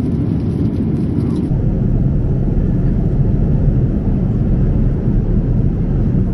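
Steady low roar of an airliner's engines and rushing air, heard from inside the passenger cabin. About a second and a half in, a faint high hiss stops and the deepest part of the rumble grows stronger.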